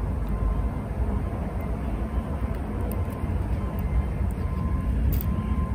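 A steady low rumble, with a faint click about five seconds in.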